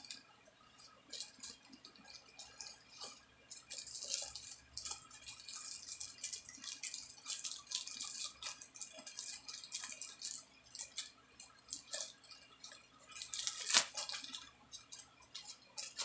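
Crinkling and rustling of a plastic bag and thin lumpia wrappers being handled, in quick crackles that come and go, with the loudest burst of crinkling about two seconds before the end.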